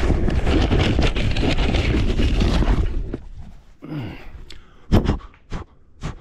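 Loud rubbing, scraping noise for about three seconds that stops suddenly, followed by a few sharp knocks.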